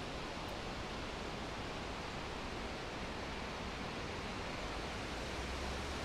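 Steady hiss of wind moving through leafy trees, with a low rumble of wind on the microphone growing from about four and a half seconds in.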